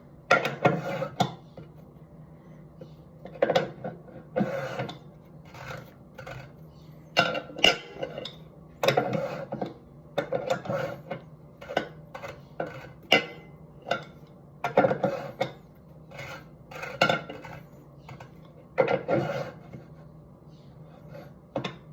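Irregular metal clinks and clanks of tools and parts against a sink faucet body while its old cartridge is worked loose and removed.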